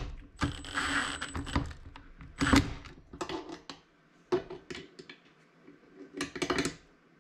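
Milwaukee M18 cordless impact driver run in several short bursts of rapid rattling, driving home the bolts that mount a case to roof bars. The first burst is the longest, about a second, with a high motor whine; the rest are shorter, with pauses between.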